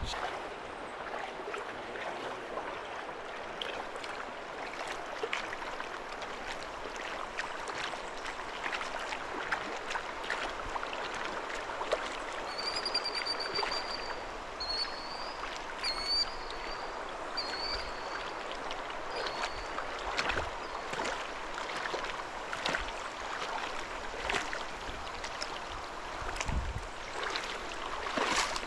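Clear river water running and splashing around someone wading knee-deep, with scattered small splashes. A bird chirps several times in quick succession midway through.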